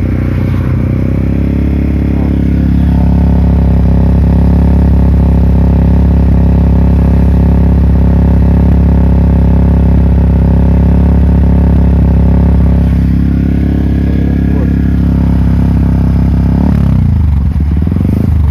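Yamaha WR 155R single-cylinder engine breathing through a Daytona GP Taper full-system exhaust, held at steady raised revs. It is lifted a little about two seconds in, held for about ten seconds, eased back, and drops toward idle near the end.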